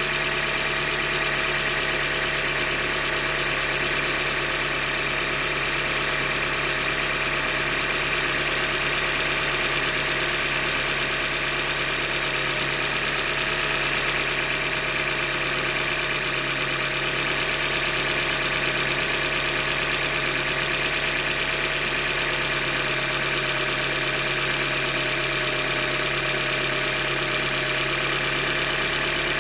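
2015 Hyundai Elantra Limited's four-cylinder engine running steadily with a knock from the engine: the sign of a failed short block, a manufacturing defect.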